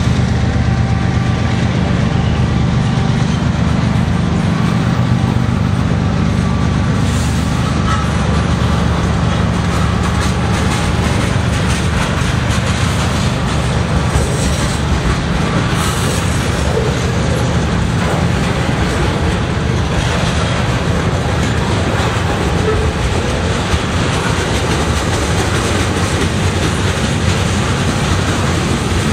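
Loaded centerbeam flatcars of a freight train rolling past steadily, their wheels running on the rails in a continuous loud roar.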